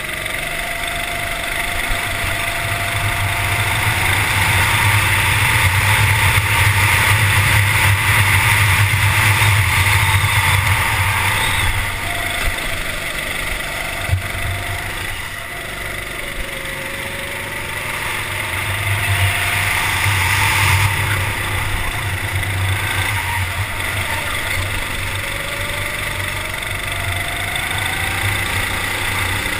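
Kart engine heard onboard at speed, its pitch climbing along the straights and falling away into the corners several times over the lap.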